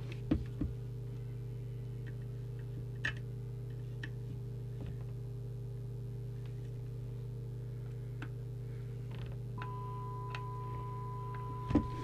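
Steady electrical hum with a faint whine above it from a CB radio on the test bench, broken by a few small clicks. A steady higher test tone joins about ten seconds in.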